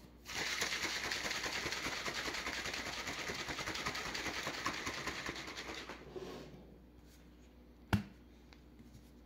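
Stainless-steel shaker bottle being shaken hard to mix whey protein powder with water: a rapid, steady sloshing rattle for about six seconds that then dies away. About two seconds later comes a single sharp click from the shaker's lid.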